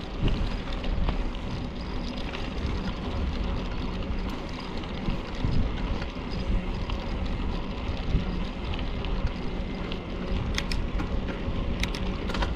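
Wind buffeting the microphone while riding a bicycle, a steady low rumble, with a few sharp clicks near the end.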